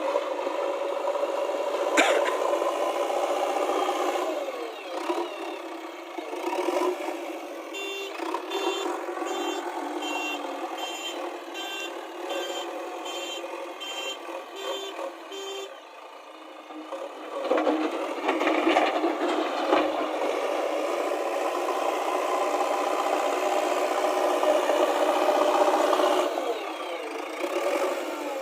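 JCB backhoe loader's diesel engine running and changing speed as the machine works, its pitch rising and falling. A reversing alarm beeps at an even rhythm for about seven seconds in the middle, with a sharp click about two seconds in.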